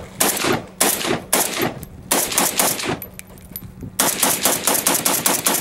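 AK-pattern rifle firing: several separate shots a fraction of a second apart, a pause of about a second, then a fast, evenly spaced string of shots near the end.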